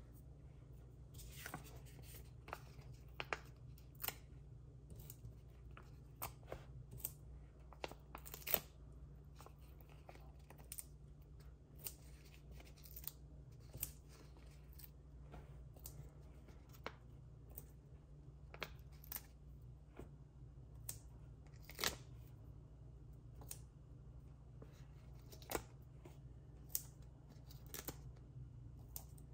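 Handling of card stock, paper and craft tools on a table: irregular light taps, clicks and rustles, a few sharper knocks among them, over a steady low hum.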